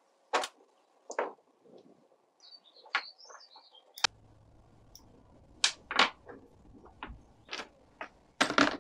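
Small metal bicycle brake parts, bolts and a screwdriver clicking and knocking on a wooden workbench as the brake is taken apart, in separate sharp clinks with a louder clatter near the end.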